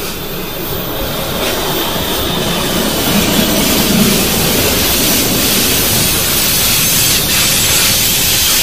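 BLS RABe 535 "Lötschberger" electric multiple unit rolling past close by, its wheels running over the rails. The noise builds steadily as the train draws level.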